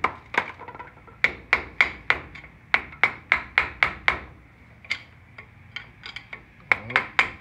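A hammer striking a flathead screwdriver wedged against a Ford Ranger front brake caliper, driving out the caliper's slide. The strikes are sharp and ringing, about three a second, and lighter for a moment around the middle.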